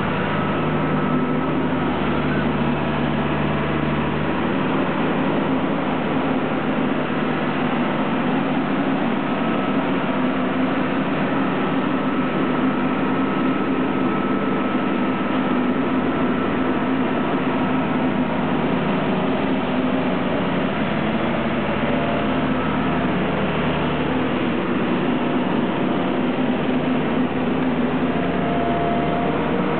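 Heavy machinery running steadily, a continuous low hum under a dense mechanical noise that barely changes.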